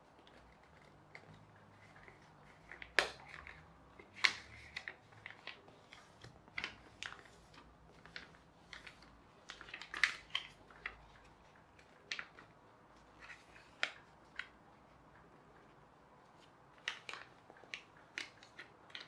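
A printed sheet of paper being folded and creased by hand into a paper aeroplane: irregular crisp crackles and taps of paper, loudest about three and four seconds in.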